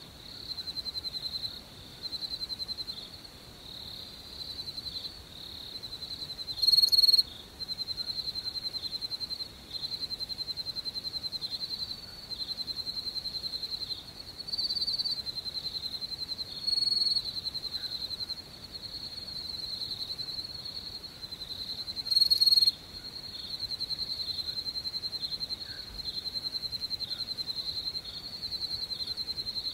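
Crickets chirping in repeated trains of rapid pulses at one high, steady pitch, with short gaps between trains. A few louder chirps stand out, about seven, seventeen and twenty-two seconds in.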